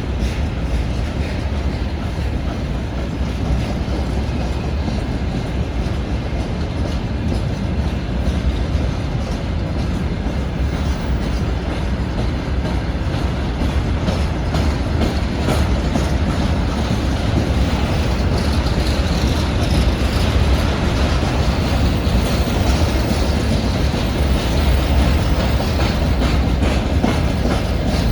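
Freight train rolling past, its wagons' steel wheels clattering over the rail joints in a steady stream of clacks. The noise grows a little louder over the second half.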